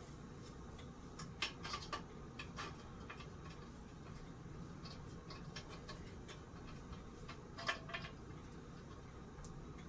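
Scattered light clicks and taps of small fan parts and tools being handled during disassembly, a few in quick succession about a second and a half in and again near the end, over a steady low hum.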